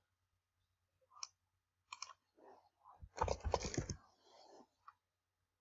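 Faint clicks of a computer mouse and keyboard: a few single clicks, then a quick run of keystrokes about three seconds in as a short comment is typed and sent.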